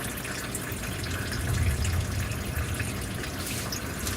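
Engine oil steadily running and dripping into a drain pan from the oil filter mount, just after the old filter has come off.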